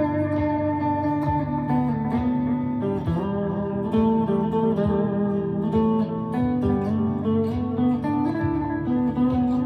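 Chapman ML3 Pro Traditional electric guitar with Seymour Duncan Hot Tele pickups, played in an ambient style: picked notes and chord tones ring on and overlap one another.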